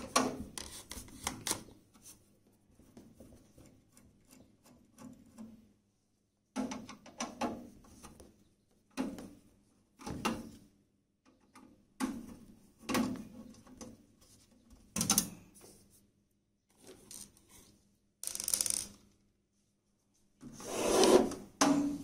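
Screws being taken out of the IPS inverter's casing: a string of short, irregular scraping and rubbing sounds with clicks, about a second apart, the loudest near the end.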